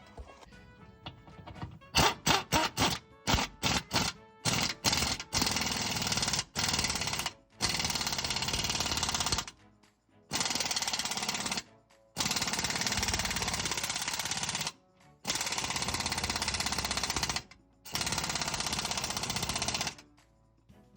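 Impact wrench hammering in bursts: a quick string of short blips about two seconds in, then repeated runs of a second or two each with brief pauses between.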